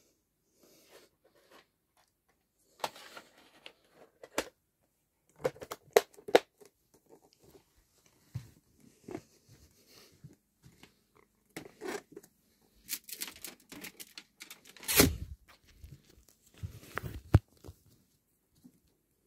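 Irregular handling noises from a videotape case being moved about at close range: scattered clicks, knocks and short rustles, with the loudest knocks about 15 and 17 seconds in.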